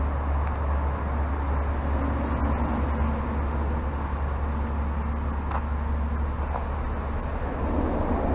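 Steady low rumble of Interstate 81 traffic passing over a concrete tunnel, heard from inside the tunnel.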